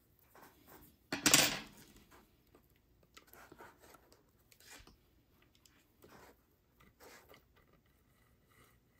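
Faint clicking and rattling of a small HO scale model steam locomotive being test-run, its loose piston rod held in place by hand, with a short, loud scrape about a second in.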